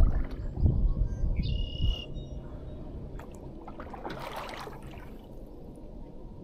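Wind buffeting the microphone on an open lake in a low rumble for the first two seconds, then easing to a steady low hiss. A short high bird call comes about a second and a half in, and a brief rushing swish of water about four seconds in.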